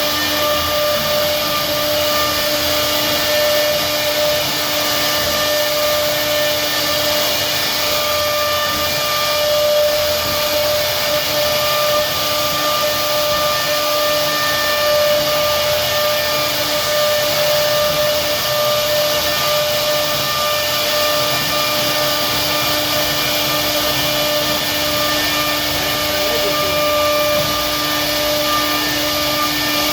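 CNC router spindle running steadily with a constant whine as it carves a wooden door panel, over a rushing noise of cutting and machine motion.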